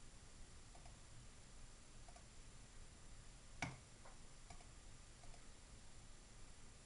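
A near-silent pause in typing at a computer, with faint light ticks and one sharp click about three and a half seconds in, followed by a fainter click.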